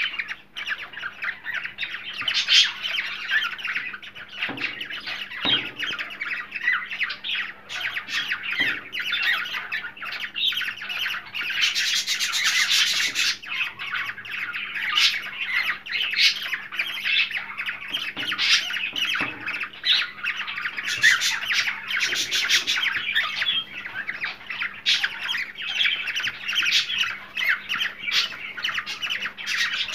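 Cockatiels chattering and squawking without pause, many short calls overlapping, with a harsher, louder burst of squawking about twelve seconds in. It is the kind of flock calling played to cockatiels to stimulate breeding. A faint steady hum runs underneath.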